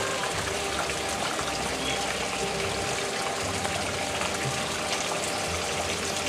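Water falling steadily from a rock-wall water feature into a garden pond, a constant splashing rush.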